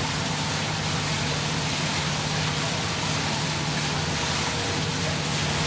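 Ship's engine machinery running steadily: a constant low drone with a steady hum under an even hiss.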